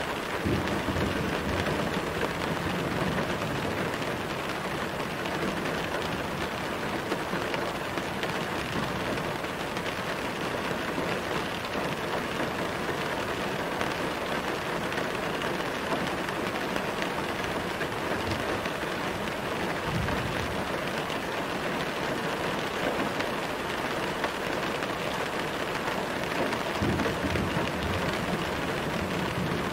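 Steady rain falling on a car, heard from inside the cabin: an even hiss of rain on the roof and windows, with a few brief low rumbles.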